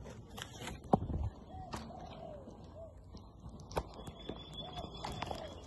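Birds calling in short rising-and-falling notes, repeated every second or so. Over them come knocks and rubbing from the phone being handled right at its microphone, with a loud knock about a second in. A thin high steady tone starts about two-thirds of the way through.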